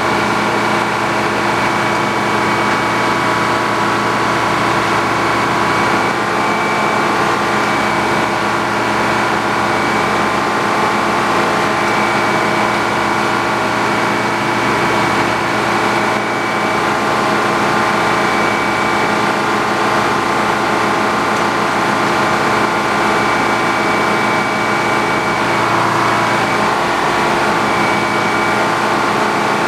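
Sawmill engine running steadily under a constant load, a level hum with a high steady whine above it and no pauses.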